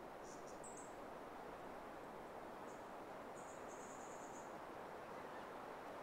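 Steady faint outdoor rushing hiss, with thin high-pitched chirps from a small animal over it: a few short ones in the first second, one more near the middle and a rapid trill of pulses lasting about a second.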